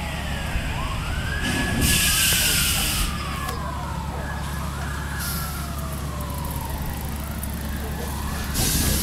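Emergency vehicle siren wailing. Each cycle rises quickly, then falls slowly over a few seconds, and it comes twice, over a steady low rumble and a few short bursts of hiss.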